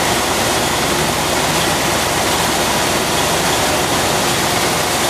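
1978 Mercury Grand Marquis V8 idling, heard up close at the front of the engine with its cooling fan and accessory belts turning: a loud, steady rushing noise with no misses. It is running smoothly on a newly fitted distributor.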